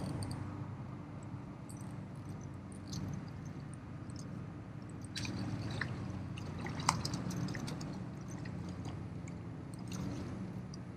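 A hooked freshwater drum splashing and thrashing at the water's surface as it is reeled in toward the bank, starting about five seconds in, with a sharp click about seven seconds in. A steady low hum runs underneath.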